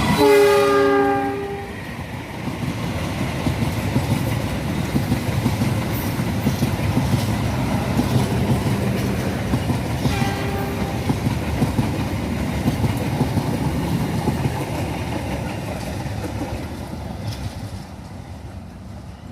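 A CC 206 (GE C20EMP) diesel-electric locomotive's horn sounds a loud chord of several tones, which cuts off about two seconds in. The train then runs past with wheels clacking on the rails, with a second, shorter and fainter horn chord about ten seconds in. The passing noise fades near the end.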